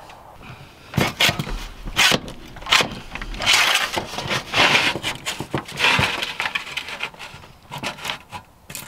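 Hand tin snips cutting through corrugated sheet metal: a series of irregular metallic snips, some short and sharp, some drawn out for about half a second as the blades chew along the ribs.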